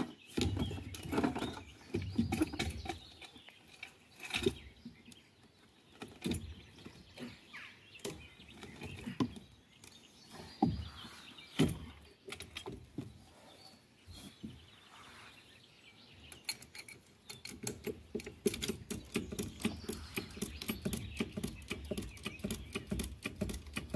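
Scattered knocks and scrapes of a wooden plank and tools being handled under a pallet, then a fast run of small clicks through the last third.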